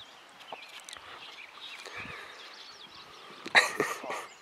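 Faint chirping of small birds, then a brief loud burst about three and a half seconds in.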